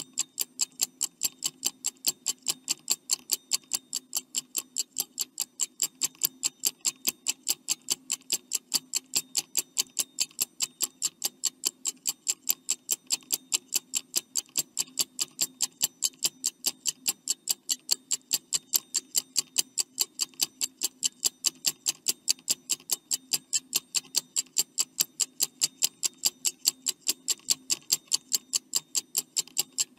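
Stopwatch ticking sound effect, steady and even, counting down the time allowed to answer a quiz question.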